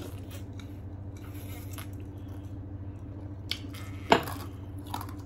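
Sipping drinks from glass tumblers: small slurps and light glass clinks, with one sharper clink or knock about four seconds in, over a steady low hum.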